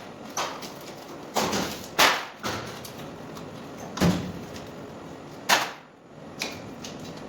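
A handful of irregular sharp knocks and thuds, about seven in all, some trailing off in a short scraping rattle, with the loudest near two seconds in and at about five and a half seconds.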